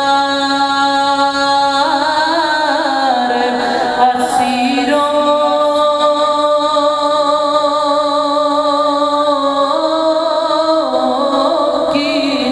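A man's voice singing a naat through a microphone, drawing out long held notes that step to a new pitch every few seconds.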